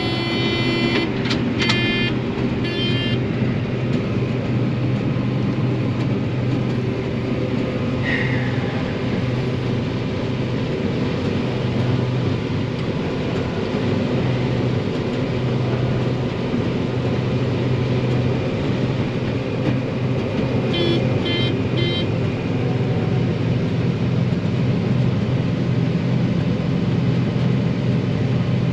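Combine harvester running steadily under load with a constant low engine hum, its belts working normally. Short electronic beeps sound twice, near the start and again about two-thirds of the way through.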